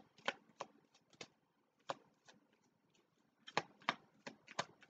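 A tarot deck handled and shuffled by hand: a scattering of quiet, irregular card taps and snaps, sparser in the middle.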